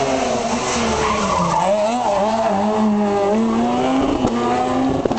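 A rally car's engine at high revs as the car slides past on tarmac, its tyres scrubbing. The engine note dips about one and a half seconds in, then climbs and holds as it powers away. A couple of sharp clicks come near the end.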